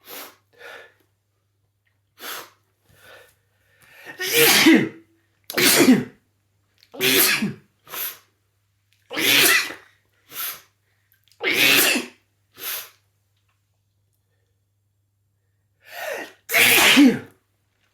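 A person in a sneezing fit brought on by sniffing chhinkni sneezing powder. About six loud sneezes come a second or two apart, with quieter sneezes and gasps between them, then a pause of about three seconds before a last pair near the end.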